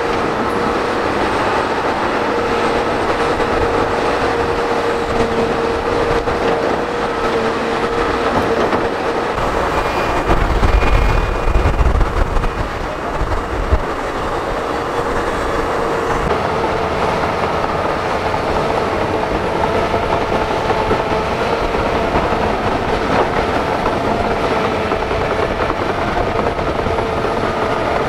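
Hydraulic excavators working: a steady diesel engine drone with a high tone running through it. About a third of the way in comes a burst of heavy low thumps lasting a few seconds.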